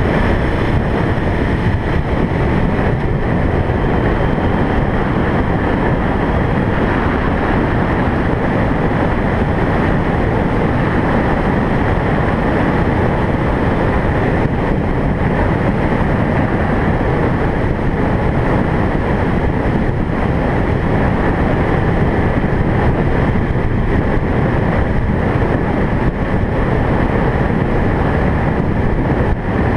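Steady road and wind noise of a moving car, an even rumble and rush with no breaks.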